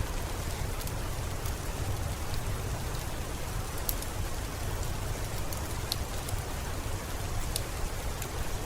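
Steady rain, with a wood fire crackling in sharp, scattered pops every second or so.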